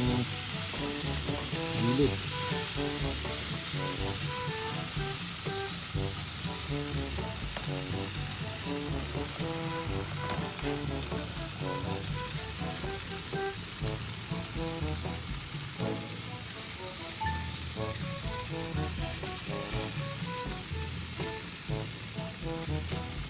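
Pork ribs sizzling steadily on a flame grill, with background music playing a melody underneath.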